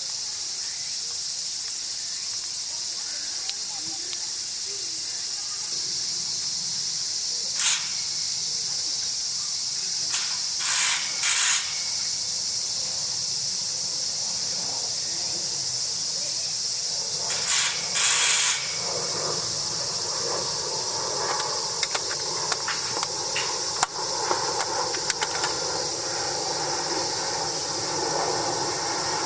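A chorus of insects shrilling steadily and high-pitched, with a few short, louder bursts. A lower, rough rustling noise joins in about two-thirds of the way through.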